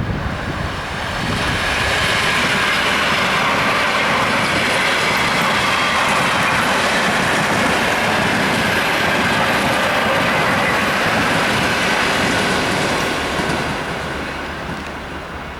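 ED4M electric multiple unit passing at speed: a loud, steady rush of wheels on rails that builds about a second and a half in, holds, and fades away near the end.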